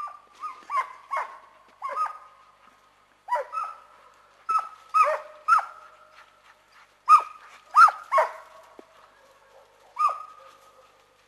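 Hunting dog barking on the chase of a wild boar: more than a dozen sharp barks in uneven bunches, each trailing off with a ringing tail.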